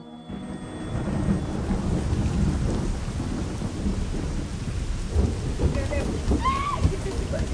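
Steady rain falling with low rumbling thunder, a thunderstorm in progress. A brief high-pitched call rises and falls about six and a half seconds in.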